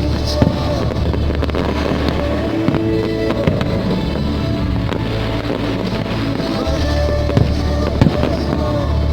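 Music with a heavy bass line, mixed with a handful of sharp fireworks bangs from an aerial fireworks display.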